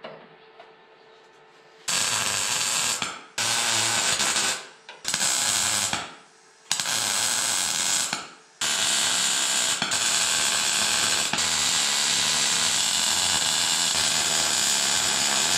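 MIG welder arc crackling as a steel patch is welded into rusted bodywork: four short welds of a second or so each, then one long continuous run of about seven seconds.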